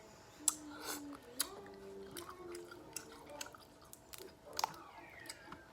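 Close-up eating of a seafood boil: chewing, broken by a few sharp cracks and clicks. The loudest comes about half a second in, with others about a second and a half in and near the end.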